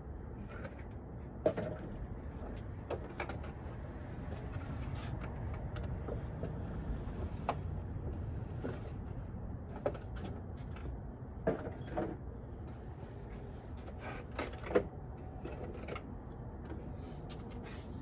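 Plastic packaging being pulled off a screwdriver set and handled: scattered light clicks and crinkles over a steady low hum.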